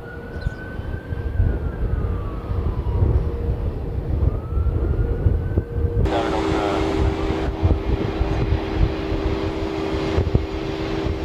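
Jet airliner engine noise over a low rumble. About halfway through it changes abruptly to a louder, fuller sound with a steady hum.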